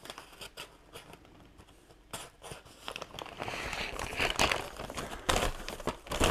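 Stiff brown paper bag being slit open at its sticker seal and pulled apart, the paper crinkling and rustling. The rustling grows louder in the second half as a hand opens the bag and reaches inside.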